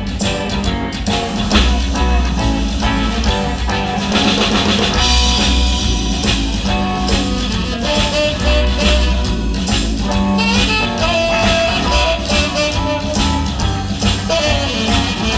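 Live band playing an instrumental passage in a bluesy rock style, with a guitar lead over drum kit and bass and no singing.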